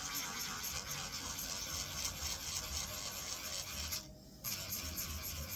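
Electric nail drill grinding gel polish off an acrylic nail, a steady rasping scrape that breaks off for a moment about four seconds in.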